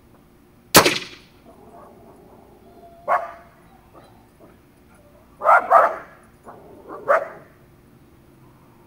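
A single sharp shot from an AirForce Condor PCP air rifle about a second in, followed by a dog barking four times: once around three seconds, a quick double bark in the middle, and once more near the end.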